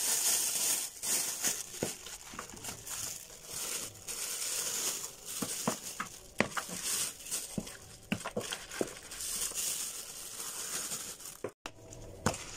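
A thin plastic bag crinkling as it is opened and filled, with a plastic spoon scooping from a plastic tub and making scattered short knocks.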